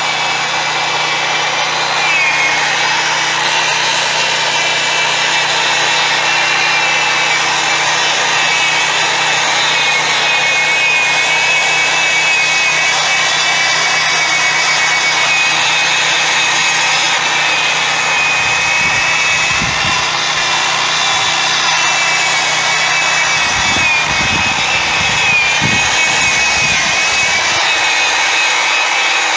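Electric drill spinning a foam polishing pad against a plastic headlight lens, buffing in chrome polish. The motor runs with a steady whine that dips briefly in pitch about two seconds in and again near the end, with a few low rumbles in the last few seconds.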